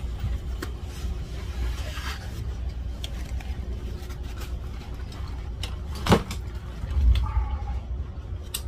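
Passengers moving along a train carriage aisle: a steady low rumble, with bags rustling and brushing and a sharp knock about six seconds in.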